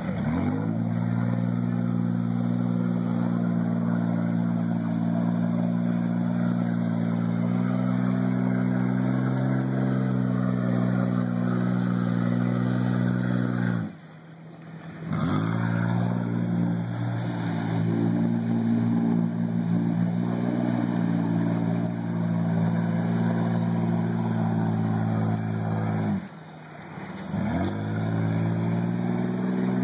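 Jeep Wrangler engine held at steady high revs while the Jeep wades and spins its wheels through deep river water. Twice, about halfway and again near the end, the engine note drops away briefly, then climbs back up as the throttle is reapplied.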